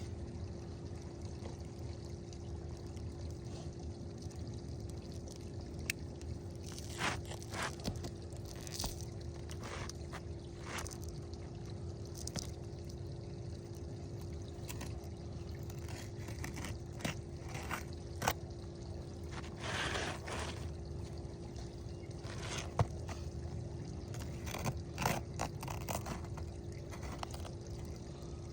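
A new roof shingle being slid and worked into place beneath the shingles above, giving irregular scrapes and rustles over a steady low hum.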